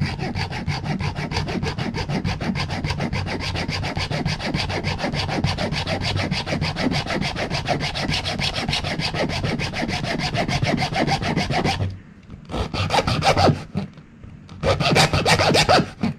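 Junior hacksaw sawing through the sealed pod of a fitness band: quick, steady back-and-forth strokes that stop about twelve seconds in, followed by two short bursts of sawing near the end.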